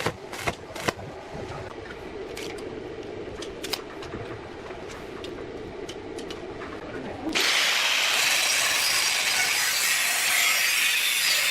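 A few knocks of metal parts being handled, then a power tool starts abruptly about seven seconds in and runs steadily under load, working metal.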